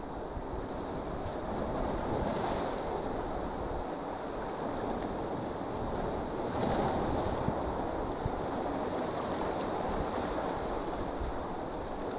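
Sea surf breaking and washing over shoreline rocks: a steady rush of water that swells louder about two and a half seconds in and again near seven seconds.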